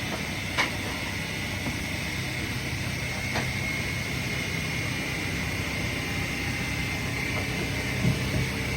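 Heavy machinery running steadily with a low hum and a thin high whine, broken by a few sharp clicks and a knock near the end.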